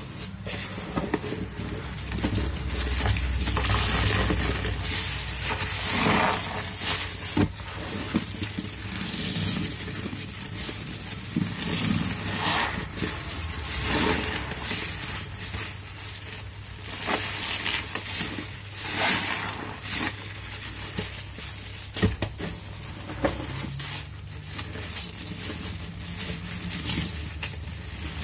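Soapy foam sponges cut from mattress foam, squeezed over and over by rubber-gloved hands in a sink: wet squelching and fizzing of thick suds with liquid spraying out, rising in repeated swells a second or two long, with a few sharp clicks.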